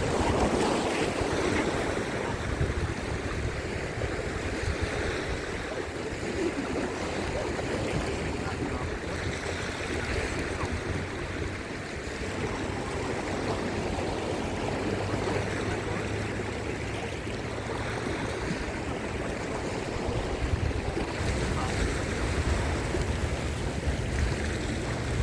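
Ocean surf washing onto a beach in a steady rush of noise, with wind buffeting the microphone in low rumbles.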